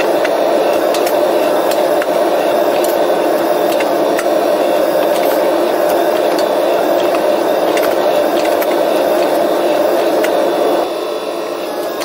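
Gas torch flame burning steadily against a piece of steel. It drops to a quieter level about a second before the end.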